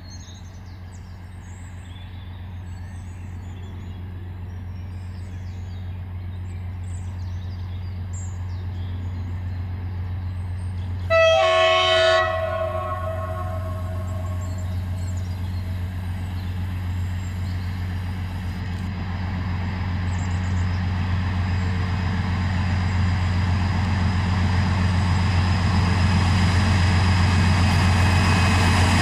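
ST40s diesel locomotive hauling a freight train as it approaches: a steady low engine drone that grows louder throughout. A single horn blast, lasting about a second, comes about eleven seconds in.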